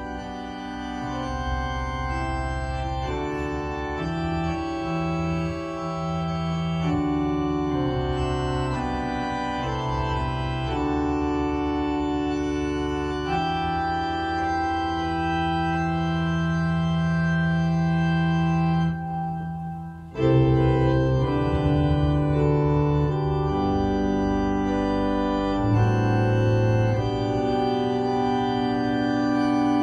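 Church organ playing slow, sustained chords that change every second or two; the playing breaks off briefly about nineteen seconds in and comes back louder.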